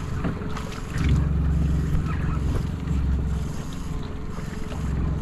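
Wind buffeting the microphone in gusts, with a faint steady hum of a boat's outboard motor beneath.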